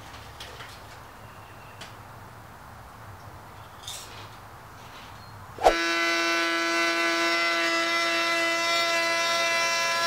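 Faint shop noise with a few light clicks, then a little over halfway a compact trim router starts suddenly and runs with a steady high whine, cutting a rabbet into the plywood edge.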